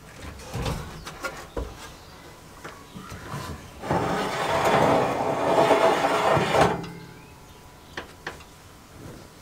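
Oven door opening with a few clicks and knocks, then a wire oven rack pulled out along its metal runners, scraping and rattling for about three seconds before a couple of final clicks.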